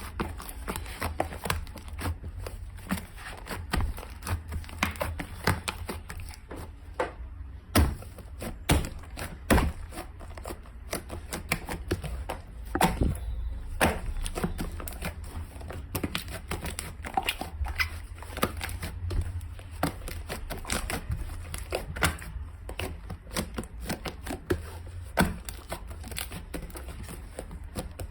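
Slime being squeezed and pressed by hand, giving a dense, irregular stream of small crackles and pops.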